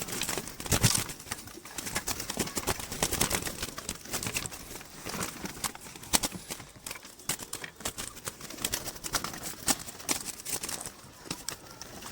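Irregular light clicks, taps and rustles of handling at a bird trap, with no steady tone.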